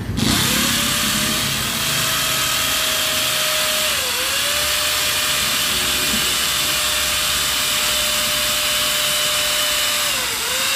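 Corded hammer drill boring into a concrete beam, running steadily at full speed. Its motor pitch dips briefly twice, about four seconds in and near the end, as the bit loads up in the concrete.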